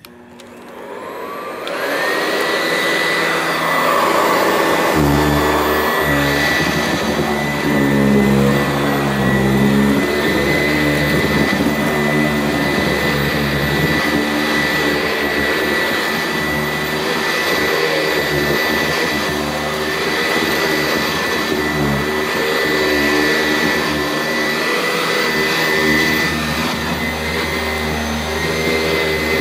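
Sanitaire SC889A upright vacuum cleaner switched on: the motor whine rises over the first couple of seconds and settles into a steady high whine. From about five seconds in, a lower rumble joins as vacuuming begins.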